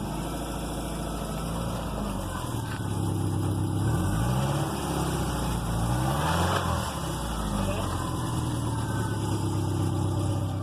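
Subaru EJ flat-four engine idling, then revved up and let back down in the middle. It has a knock or clunk under revs that the uploader takes for rod knock after it ran low on oil, though the listener thinks it may be the timing belt tensioner.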